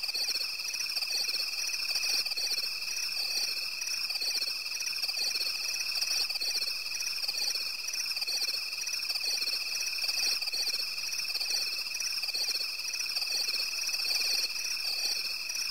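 A continuous chorus of calling animals such as frogs or insects. It has a steady thin high tone and, above it, a shimmering band that pulses rapidly, with faint low regular pulses underneath.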